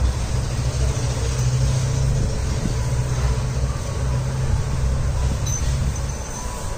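Steady low rumble of a running engine, easing slightly near the end.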